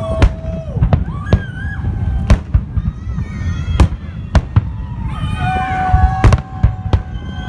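Fireworks salute: shells bursting in sharp bangs roughly once a second, irregularly spaced, over a steady low rumble.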